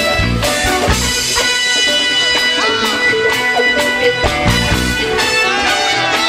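Band music without vocals: guitar and other instruments held over a drum-kit beat with bass.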